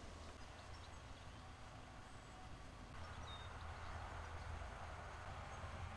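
Faint steady background noise: a soft hiss with a low hum, a little louder from about three seconds in. There is no distinct sound event.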